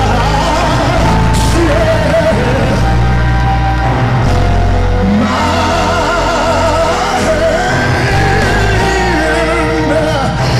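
Live gospel worship music: wavering, wordless vocal runs over held chords and deep bass notes.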